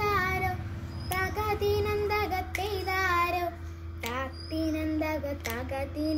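A young girl singing a Malayalam song solo, in long held, wavering notes, over a steady low background hum.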